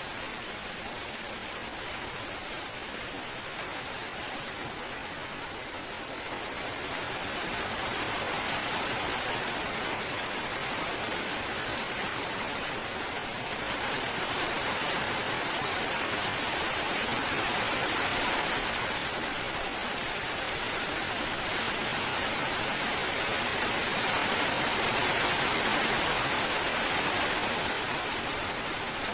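Steady rain falling, an even dense hiss that grows a little heavier in gentle swells about a quarter of the way in, near the middle and again near the end.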